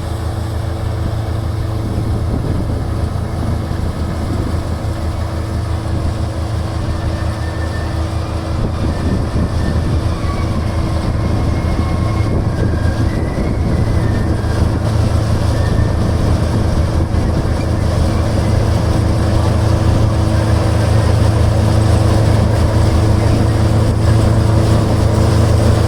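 Combine harvester's diesel engine running steadily with a low drone, growing gradually louder.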